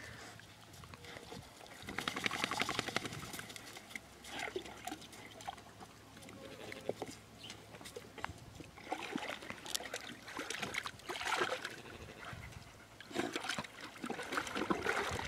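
Water splashing and sloshing in a stock-tank water trough as a dog climbs in and paws around in it, in several irregular bursts with quieter spells between.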